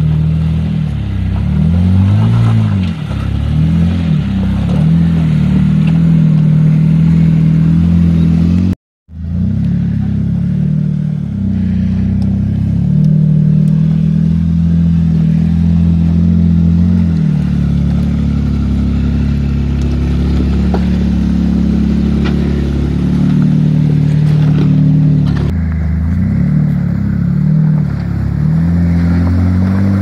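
Jeep Wrangler JK's engine working as the 4x4 crawls up a rock step, revs rising and falling. The sound cuts out completely for a moment about nine seconds in.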